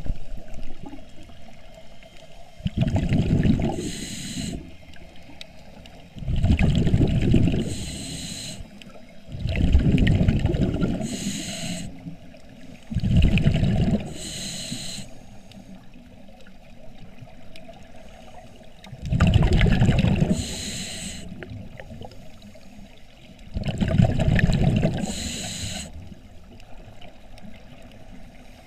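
Scuba diver breathing through a regulator underwater: six bubbling exhalations a few seconds apart, each ending in a short hiss, with a longer pause between the fourth and fifth.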